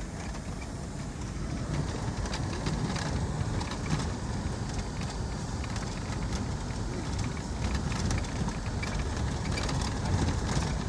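Road traffic noise: a steady low rumble of vehicles running on the road, with scattered small clicks.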